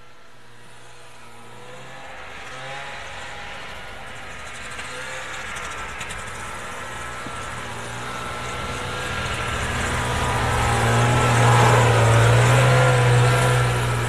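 Arctic Cat snowmobile engine approaching, growing steadily louder, its pitch rising and falling with the throttle; it is loudest near the end as the machine comes close.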